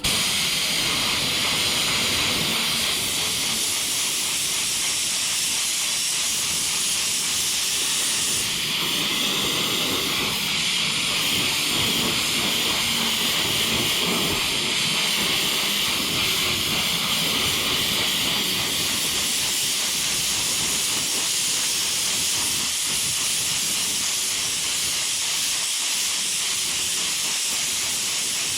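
Compressed-air paint spray gun spraying metallic black paint: a steady, loud hiss of air and atomised paint that starts abruptly and runs on without a break, its tone shifting slightly about a third and two thirds of the way through.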